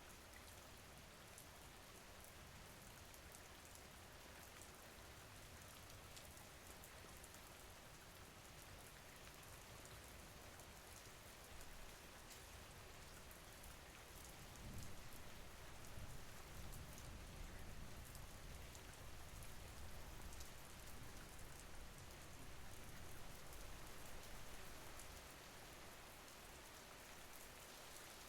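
Steady rain falling, an even hiss of many small drops ticking on a surface. About halfway through a low rumble swells in and eases off again near the end.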